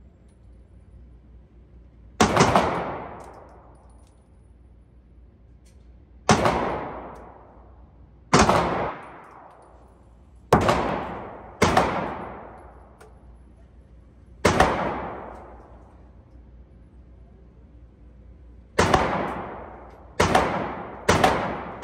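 Handgun fired shot by shot in an indoor range lane: nine single shots at uneven gaps of one to four seconds, each followed by a long echoing decay off the range walls.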